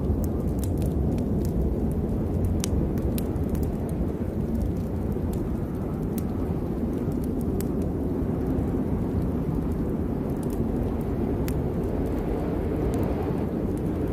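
Storm ambience: a steady, deep rumbling wash of heavy rain and wind, with scattered sharp clicks and crackles through it.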